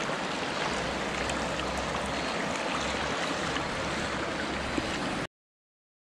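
Shallow mountain stream flowing over rocks, a steady rush of water that cuts off abruptly a little over five seconds in.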